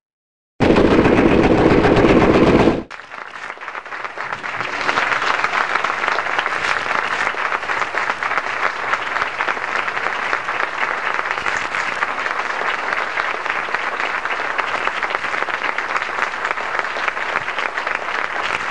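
A very loud burst lasting about two seconds cuts off abruptly, and then a theatre audience's applause builds up and carries on steadily.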